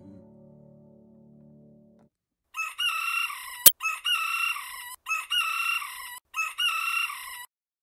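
The last acoustic guitar chord rings and fades out over the first two seconds. A rooster's crow follows, broken into four stretches of about a second each with short gaps between them, and one sharp click during the first stretch.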